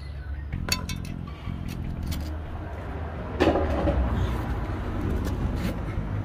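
A motor vehicle engine running with a steady low rumble. There are a few sharp clicks about a second in and a louder clatter about halfway through.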